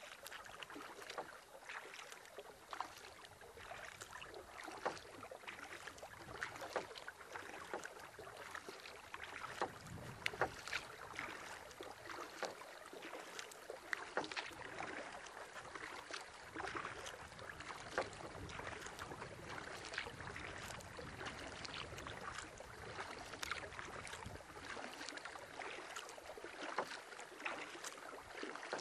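Canoe being paddled on a lake: many small, irregular splashes and drips of water.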